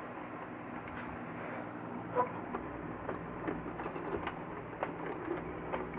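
Scattered light clicks and taps of wires and tools being handled while an energy-saving lamp circuit is wired to a tube light, over a steady low hum.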